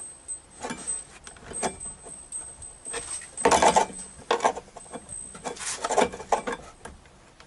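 Small metal parts of a model steamboat's brass steam plant clinking, knocking and scraping under the hands as they are fitted and adjusted, in irregular bursts, the loudest a little past the middle.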